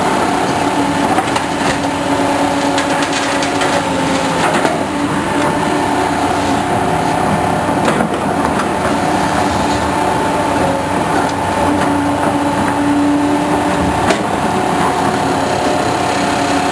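Heavy road-construction machinery running steadily, a constant engine drone with a held whine, with scattered metallic knocks and clanks.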